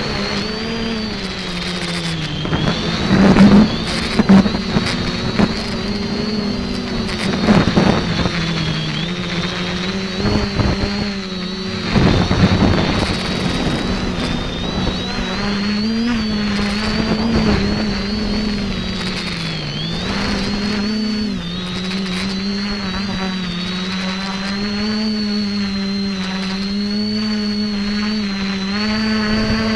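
X550AIOP quadcopter's brushless motors and propellers running in flight, heard from on board as a steady hum with a high whine above it, wavering in pitch as the throttle changes. Wind buffets the microphone in a few short gusts in the first half.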